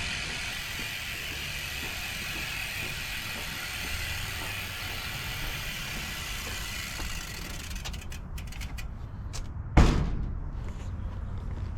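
A bicycle's freewheel rear hub ticking steadily as the wheel turns without pedalling. Near the end come a few separate clicks, then one sharp loud knock.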